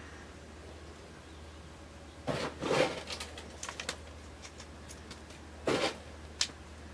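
Compost rustling and pattering as fingers crumble it into a small plastic plant pot to cover a seed, in two short bursts with a few light clicks between. A low steady hum runs underneath.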